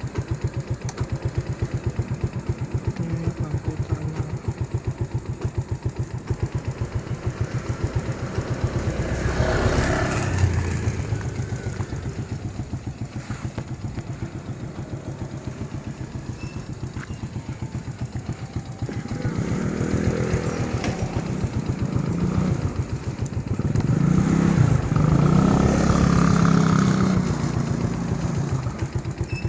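Motorcycle engine idling with a steady fast beat, getting louder briefly about ten seconds in and again for several seconds near the end, as the revs rise.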